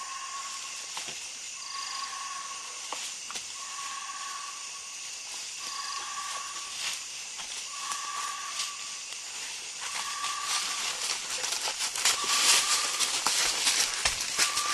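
Night rainforest insects: a steady high hiss, with a short call at one pitch repeating about every two seconds. Near the end, a louder run of sharp clicks and crackling rustles as an elephant brushes right against the camera trap.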